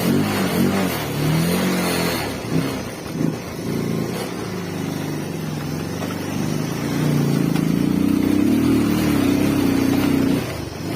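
Motorcycle engine running under way, with heavy wind noise on the microphone; the engine pitch wanders, climbs and holds a few seconds past the middle, then drops off near the end.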